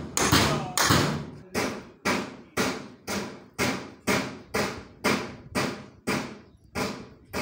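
Steady hammering, about two blows a second, each blow with a short ringing tail.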